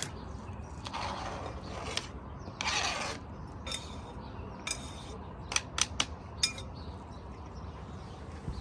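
Cooking utensils handled during food preparation: two brief scrapes, then a quick run of sharp clicks and knocks, over a steady low outdoor background.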